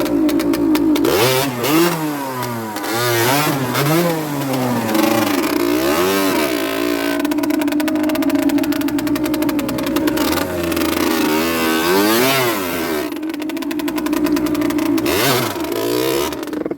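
Rieju Drac 50's 50cc two-stroke engine running under way, revving up and dropping back several times as the throttle is worked. The sound cuts off suddenly near the end.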